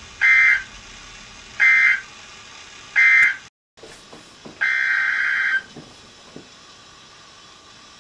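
Weather radio SAME digital data bursts: three short, loud, buzzy bursts about a second and a half apart, the end-of-message code that closes an alert. After a brief dropout, a longer burst of about a second follows, over a faint steady hiss.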